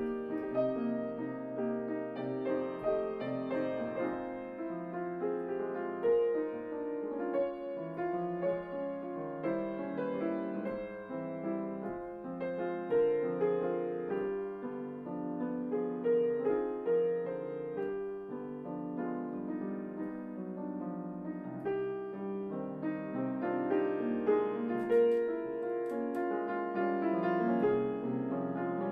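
Grand piano played solo: a continuous classical passage of sustained, overlapping notes, mostly in the middle register.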